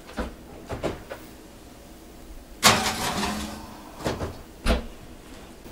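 A cast iron skillet going into an oven: a few light clicks, then a longer metallic scrape and rattle as it slides onto the oven rack about two and a half seconds in, and a low thud near the end as the oven door shuts.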